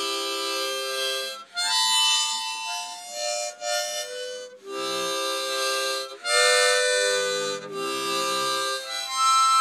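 Harmonica being played in short held chords and phrases, each a second or so long with brief breaks between.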